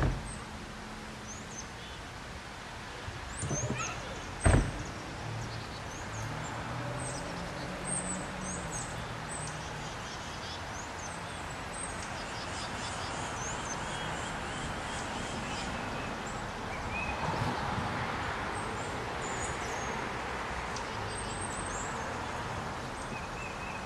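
Outdoor town ambience: a steady low rumble of vehicle engines and traffic with small birds chirping, and one sharp thump about four and a half seconds in.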